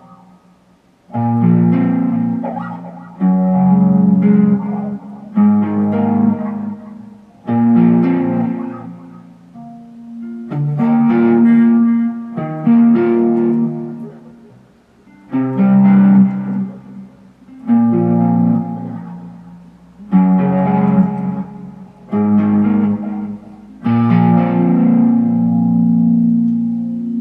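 Ambient guitar music played through heavy delay, reverb and phaser: chords struck about every two seconds, each ringing out and fading before the next. The music stops abruptly at the end.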